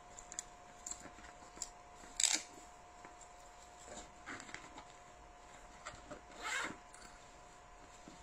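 Nylon tool backpack being handled and its compartments searched: scattered small clicks and rustles of fabric, with two louder brief rustles about two seconds in and again about six and a half seconds in, over a faint steady hum.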